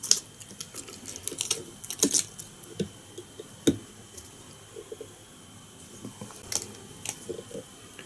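Small clicks and ticks from fly-tying tools and thread being handled at the vise while the monofilament is tied off, irregular and scattered.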